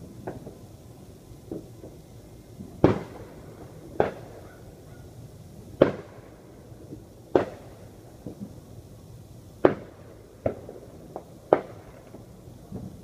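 A series of sharp bangs, about a dozen at irregular intervals of one to two seconds, some much louder than others.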